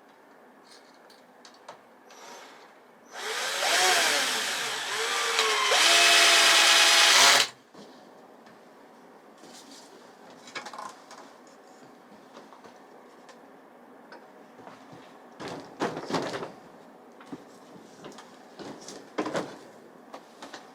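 A handheld power tool runs in two bursts of about two seconds each, its motor pitch sliding up and down under load. This is followed by a few scattered knocks and clatters.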